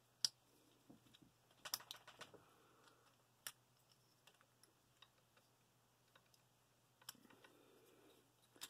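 Sparse sharp plastic clicks and taps from a War for Cybertron Springer Transformers figure being handled mid-transformation, its joints and parts clicking as they are moved, with a cluster of clicks around two seconds in and a few more near the end.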